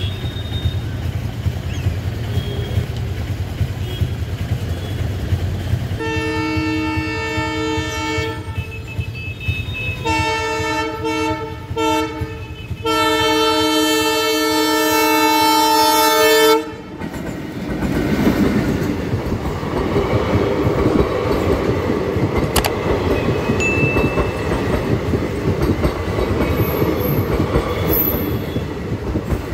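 A low rumble, then a train's air horn sounding three blasts, the last the longest at about four seconds, cutting off sharply. The passenger train then runs through the crossing, its coaches rattling steadily over the rails with a clickety-clack.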